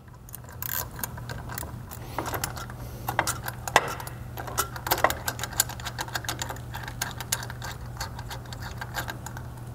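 Ratchet clicking in quick, uneven runs as a 10mm socket turns out a clutch-arm bolt on the primary clutch of a Polaris RZR XP Turbo. A low steady hum runs underneath.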